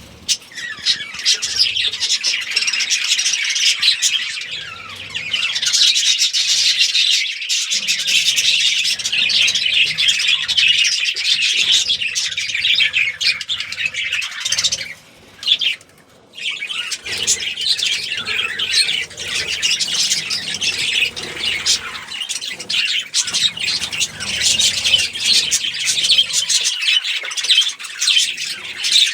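A colony of budgerigars chattering and chirping together in a dense, continuous mass of high chirps and squawks, which drops out briefly about halfway through.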